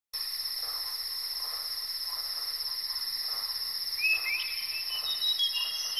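Crickets chirping in a steady, fast-pulsing chorus, with a short rising chirp about four seconds in.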